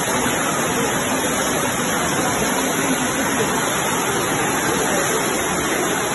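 Floodwater rushing down a street as a steady, loud torrent, a continuous roar of churning water.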